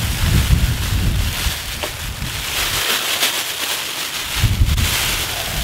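Wind buffeting the microphone in gusts as a low rumble, easing off for a second or two around the middle. Over it comes the crinkle of a clear plastic bag being pulled open around a cooking pot.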